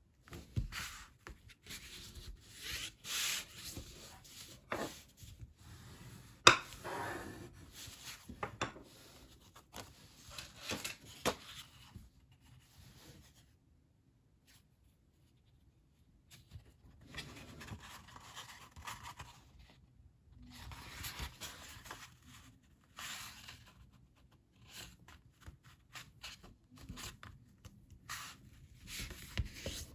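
Sheets of heavy cotton printmaking paper (BFK Rives) being handled and folded in half on a wooden table: irregular rustling, rubbing and sliding of the stiff paper under the hands, with a sharp tap about six and a half seconds in. The rustling stops for a couple of seconds around the middle, then starts again.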